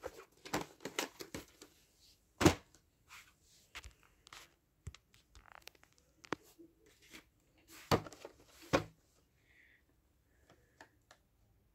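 VHS tapes and their plastic cases being handled: scattered clicks, scrapes and rustles, with a louder knock about two and a half seconds in and two more about eight seconds in.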